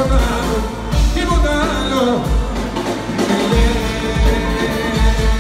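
Live band music played loud: a Greek pop song with a pulsing bass and drum beat, and a man singing into a microphone over it.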